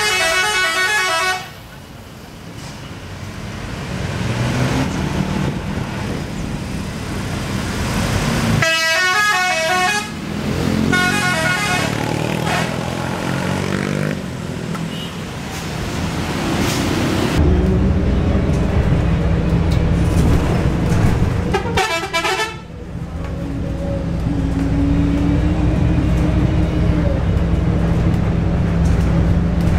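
Buses sounding 'telolet' multi-tone musical horns: four short bursts of a warbling horn melody, one right at the start, two close together about 9 and 11 seconds in, and a brief one about 22 seconds in. Between the bursts the buses' engines and tyre noise run, growing loud and low about 17 seconds in.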